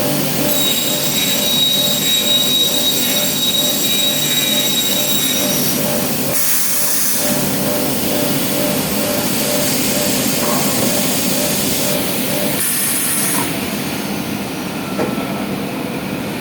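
CNC machine running loudly, with a steady high-pitched whine that stops about five seconds in and a pulsing lower tone underneath; two short bursts of hiss come in the middle and near the end.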